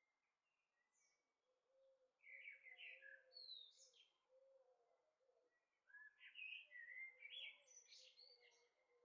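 Faint birds chirping in two bursts of quick, rising and falling calls, about two seconds in and again about six seconds in.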